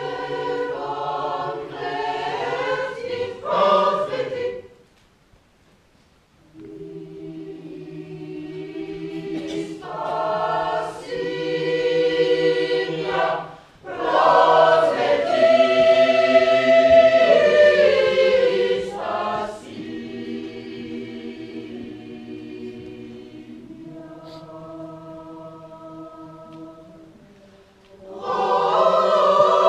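Choir singing sustained chords in several parts. The singing breaks off briefly about five seconds in, comes back softly and swells loud in the middle, drops to a softer passage, then comes in loud again near the end.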